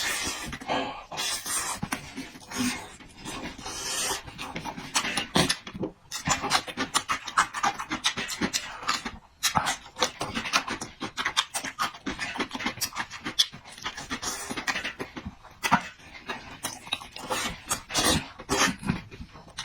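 A person eating noisily: fast, irregular wet chewing and mouth-smacking sounds, with short pauses between mouthfuls.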